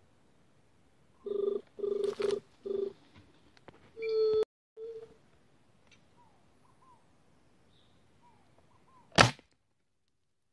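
Low dove hoots at a juriti's pitch: four short hoots, then a longer one that cuts off abruptly and one more short one. Faint small-bird chirps follow, and one loud, sharp crack comes near the end.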